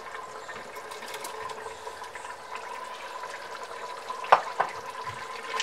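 Tomato-and-bottle-gourd masala sizzling softly in a pressure cooker over the flame as raw chicken pieces are tipped in. A sharp clink of a utensil against the pot comes a little after four seconds, followed by a smaller one.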